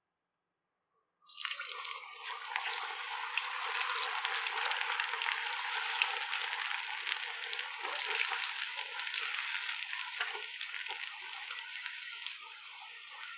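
Battered cauliflower pakoras deep-frying in hot oil: a dense crackling sizzle full of tiny pops. It starts suddenly about a second in and eases slightly near the end.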